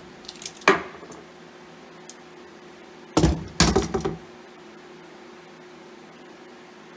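Small steel valve parts clinking as the keepers are pulled from a Ford TW-20 diesel cylinder head with a valve spring compressor: a few light clicks, then a louder clatter of metal knocks about three seconds in.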